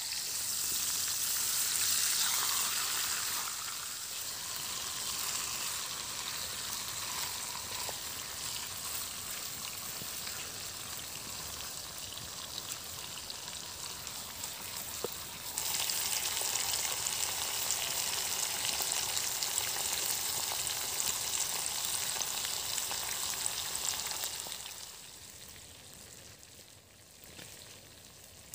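Chicken leg pieces sizzling as they fry in a metal pan over a wood fire, a steady hiss. About halfway through the sizzle suddenly gets louder, and for the last few seconds it drops to a fainter hiss.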